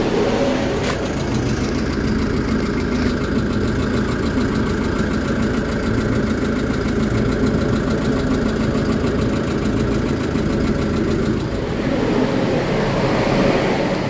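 Kia Bongo III truck's diesel engine idling steadily, with an even low pulsing.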